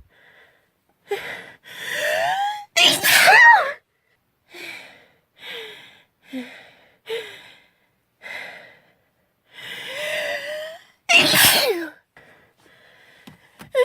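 A girl sneezing, set off by a tickle in her nose that won't go away. A long, gasping in-breath ends in a loud sneeze about three seconds in. A string of short, catching breaths follows, then another drawn-in gasp and a second sneeze near the end.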